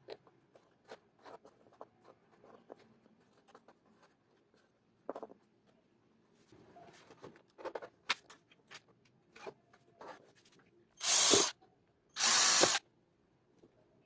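Cordless drill running in two short bursts of about half a second each, a little over a second apart, loud against the rest. Before them, light scattered clicks and taps of hands handling plastic parts and wires.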